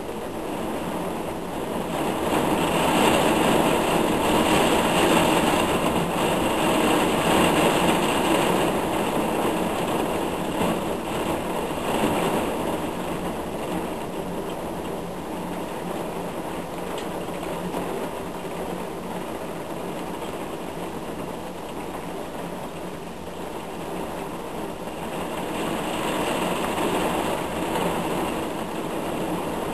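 Heavy thunderstorm downpour: a dense, steady rush of rain that swells louder a couple of seconds in, eases after about ten seconds, and builds again near the end.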